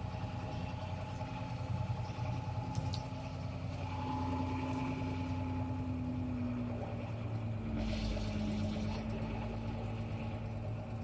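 Farm machine's engine running steadily, its pitch dropping slightly about two-thirds of the way through.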